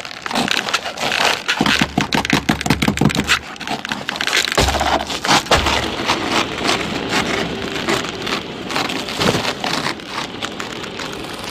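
Animated-film sound effects of a long knitted scarf being hauled in over a cliff edge and knitting needles working fast: dense crackling and clicking, with two low rumbling drags in the first half.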